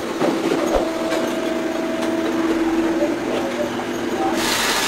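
Banknote-processing machinery running with a steady hum as stacks of cut notes move along its conveyor. About four seconds in, the sound changes abruptly to a louder, hissier machine noise.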